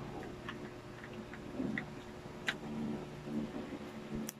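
Fluffy slime being squeezed and stretched by hand, giving a scattered few small sharp clicks and pops at irregular intervals over a faint steady hum.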